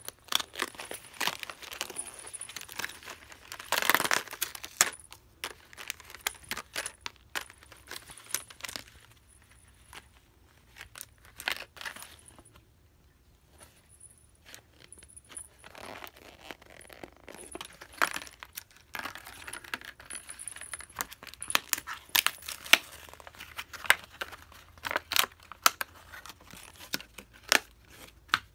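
Cardboard-and-plastic toy packaging crinkling and tearing as it is handled and opened by hand, with many scattered sharp clicks and taps. The loudest crinkle comes about four seconds in, with a quieter spell around the middle.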